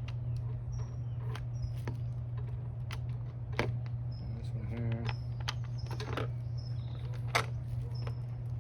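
Small metal hardware, bolts and washers, clicking and clinking as it is handled and fitted to a motorcycle's top-box mounting plate: a dozen or so sharp separate clicks, the loudest about seven seconds in, over a steady low hum.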